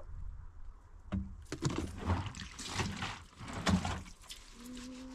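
Liquid poured from a plastic bottle onto a metal tray, splashing unevenly for a few seconds. Near the end a low steady hum starts.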